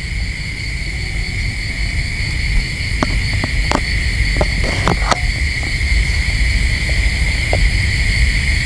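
Steady high insect chirring over a low rumble, with a few short sharp clicks between about three and five seconds in.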